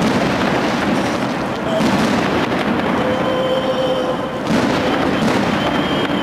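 Fireworks going off overhead: continuous crackling and rumble with sharp bangs, a loud one about four and a half seconds in and another just after.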